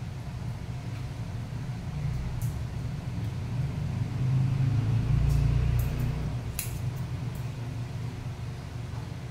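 Steady low rumble that swells about four seconds in and eases off after six, with a few crisp snips of hair-cutting scissors through wet hair.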